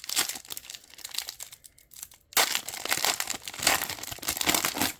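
Foil trading-card pack wrapper being crinkled and torn open by hand. There are two stretches of crackling with a short pause a little over two seconds in, and the second stretch is louder.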